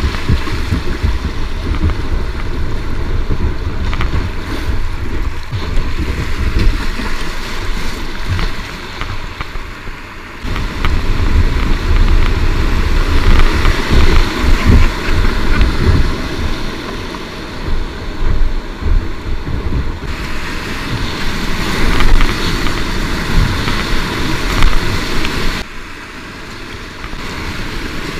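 Whitewater rushing and splashing around a kayak as it runs rapids, with a heavy low rumble of wind and water buffeting the camera microphone. It grows louder through the rougher water in the middle and drops off a little a few seconds before the end.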